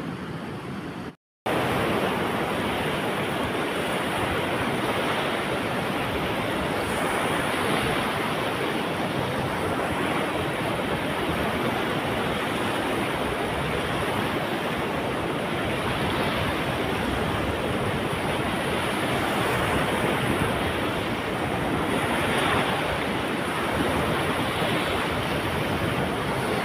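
Large, fast-flowing river rushing and its waves washing against a sandy bank: a steady, loud rush of water. It cuts in after a short silence about a second in.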